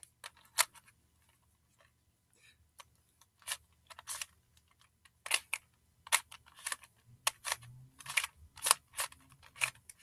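Plastic clicks and clacks of a barrel cube puzzle being twisted layer by layer, in irregular turns that come more often in the second half.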